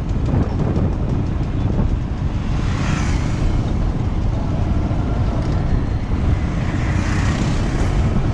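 Road traffic noise: a steady low rumble of vehicles on a highway, swelling twice, about three and seven seconds in, as vehicles pass.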